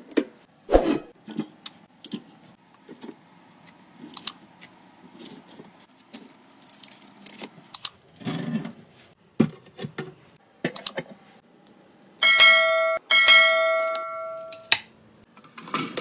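Clicks, knocks and rattles of a wire-mesh pull-out under-sink organizer as its baskets are slid out and loaded. Near the end a bell-like chime rings twice in a row, the loudest sound, like a notification ding.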